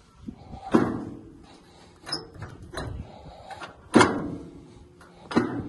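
Steel control levers on a homemade ride-on mini tractor being worked by hand, clanking five times with a short metallic ring after the louder knocks. The loudest clank comes about four seconds in.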